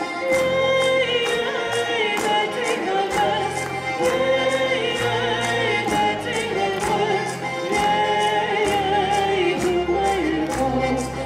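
Live Circassian folk song: singing over a band of accordions and plucked strings, with a steady beat of about three strokes a second.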